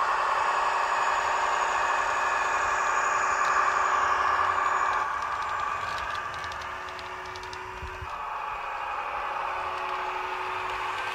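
Sound decoder of a Roco H0 model of the DB class 628.4 diesel railcar playing its diesel engine sound through the model's small speaker, a steady hum that drops back about five seconds in as the railcar moves away. A run of light clicks follows a second or so later.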